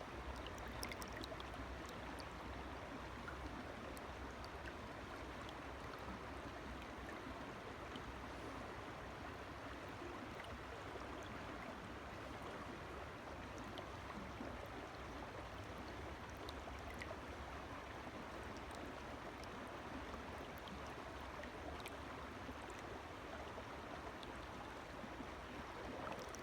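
A forest river or stream flowing: a steady, even rush of running water.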